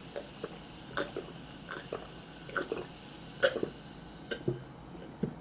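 A person gulping down a drink from a glass: a string of short swallowing sounds, about one or two a second.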